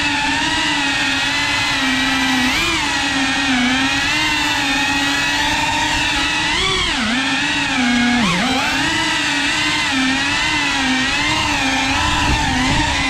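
3.5-inch cinewhoop FPV drone's motors and propellers whining steadily, the pitch wavering with throttle and dipping sharply twice, around seven and eight seconds in.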